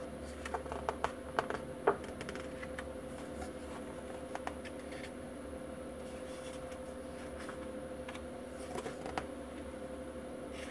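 Paper catalog being handled and its pages turned: a few short rustles and clicks in the first two seconds, then only scattered faint page sounds over a steady background hum.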